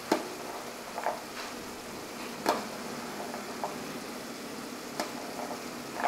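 Tomato sauce with zucchini noodles sizzling steadily in a frying pan, with several sharp knocks of a metal spoon against the pan and a plastic tub as cooked lentils are spooned in.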